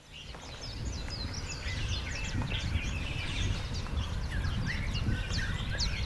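Many small birds chirping at once, a dense chorus of short, quick, high calls over a steady low rumble, fading in over the first second.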